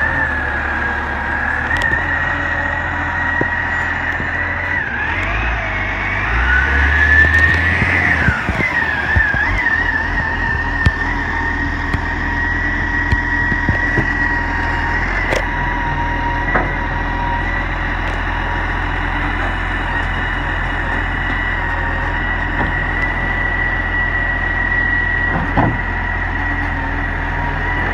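Side-loader garbage truck running with a steady high whine from its hydraulics while the automated arm picks up and empties a wheelie bin. About six to nine seconds in the engine speeds up and the whine rises and falls as the arm lifts. A few sharp clunks of the arm and bin follow.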